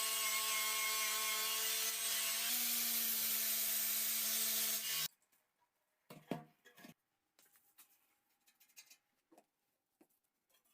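A power tool running steadily with a motor hum under a harsh abrasive noise, as in grinding or sanding metal. It cuts off suddenly about five seconds in, followed by a few faint knocks and clicks of handling.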